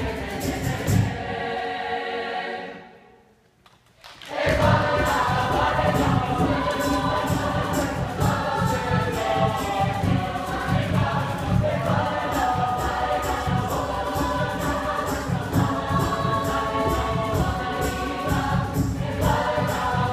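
Mixed choir singing; a chord fades away about three seconds in, there is a second of near silence, then the full choir comes back in and sings on.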